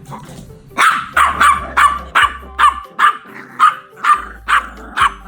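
A dog barking in a fast, steady run of about a dozen sharp barks, roughly three a second, starting about a second in.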